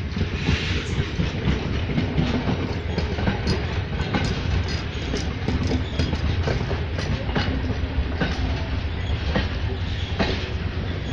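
Passenger train carriages rolling slowly past close by: a steady low rumble of steel wheels on rail, with irregular clicking and clanking as the wheels pass over the track.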